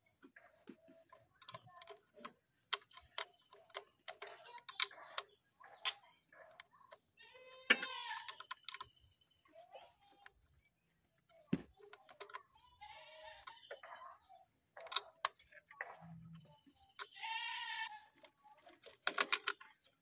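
Scattered small clicks and metallic taps of a spanner and fingers working at the fittings of an automatic gearbox's neutral/gear selector switch. Three longer wavering animal-like calls, about a second each, come in the background about eight, thirteen and seventeen seconds in.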